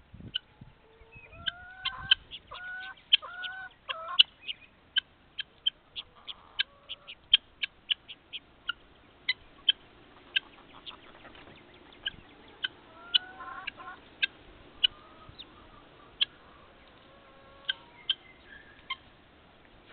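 Hens pecking at a pile of fresh grass: a run of sharp beak pecks, two or three a second, with a few short clucks in the first few seconds and again past the middle.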